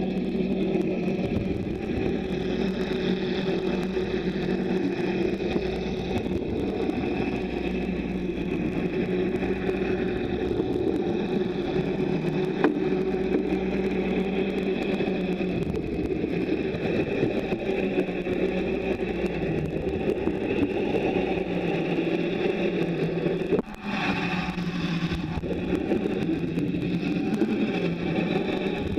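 A steady mechanical hum heard underwater, with a low drone and a noisy rush over it. About two-thirds of the way through it drops out briefly, then comes back with a slightly wavering pitch.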